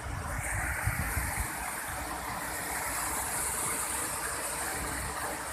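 Steady rushing of a waterfall, falling water heard as an even, unbroken noise, with a few low rumbles in the first second or so.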